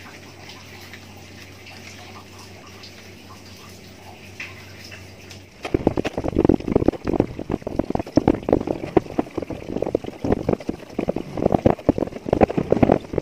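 A low steady hum. About five and a half seconds in, it gives way abruptly to a dense run of irregular crunching and scraping as a plastic scoop mixes cooked rice on a woven plastic sack.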